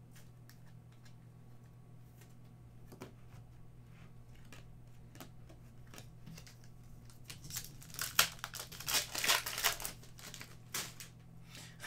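Foil trading-card pack wrapper crinkling and tearing open, the crackling starting about seven seconds in and busiest over the next few seconds, after a few faint clicks of packs being handled.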